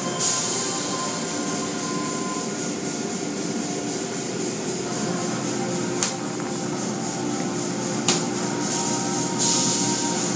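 Automatic car wash running: soft-cloth curtain strips swishing over a car amid spraying water and a steady machinery hum. A hiss of spray surges at the start and again near the end, with two sharp knocks in between.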